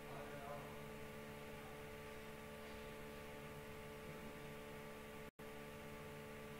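Low steady electrical hum with hiss, the background noise of the recording, cut out for an instant about five seconds in.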